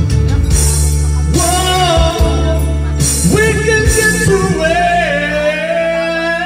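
Man singing into a microphone over backing music, holding one long high note through the second half.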